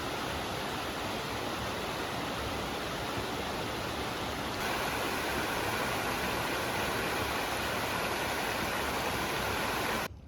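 Flowing creek water rushing steadily, a constant hiss that gets a little louder about four and a half seconds in and cuts off abruptly near the end.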